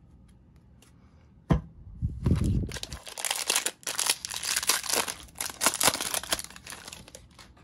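Foil wrapper of a Topps 2020 Series 2 jumbo baseball card pack being torn open and crinkled by hand. There is a sharp tap about a second and a half in, a dull bump, then about four seconds of dense crinkling and tearing.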